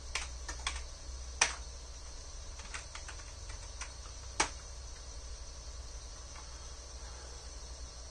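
Computer keyboard being typed in two short runs of keystrokes, about three seconds apart, each run ending in a noticeably louder key strike.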